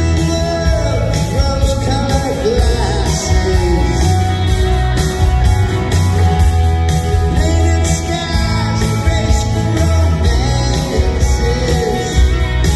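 A live country-rock band playing a song: strummed acoustic guitar, a pedal steel guitar with gliding notes, and a heavy bass, under a male lead vocal.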